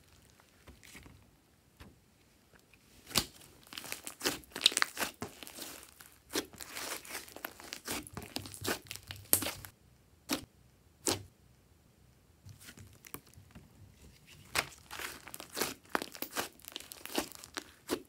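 Thick slime mixed with clay and floam beads being squeezed, stretched and pulled apart by hand: sticky crackles, pops and tearing sounds in irregular clusters, with a couple of short quiet pauses.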